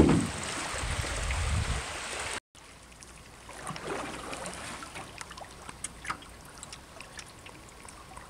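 River water rushing and trickling past a canoe through a shallow riffle. A sharp knock opens it, with low rumbling for the first two seconds. After a brief break the water is quieter, with small splashes and ticks.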